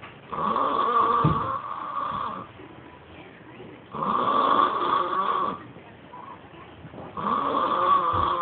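Snoring likened to Darth Vader's breathing: three long, loud snores, one about every three and a half seconds, with quieter breathing between them.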